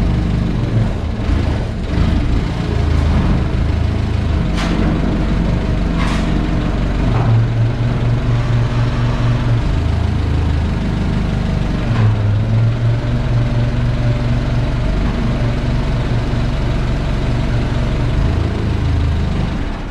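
Forklift engine running steadily, its pitch rising and falling as it works, with a couple of sharp metal knocks about four and six seconds in.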